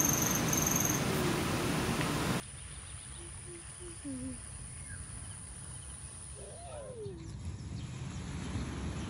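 Outdoor morning ambience: a steady hiss for the first two seconds that cuts off suddenly, leaving a quiet background. Birds then call sparsely: a few short low notes about three to four seconds in, and a gliding call near the seven-second mark.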